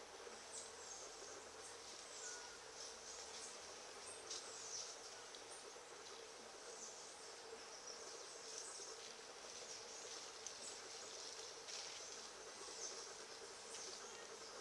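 Faint natural ambience: a steady insect drone with scattered short, high chirps.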